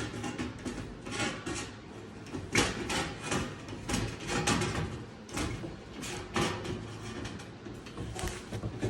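Irregular clacks and scrapes of a metal hand tool being handled and worked, a sharp knock every half second to a second.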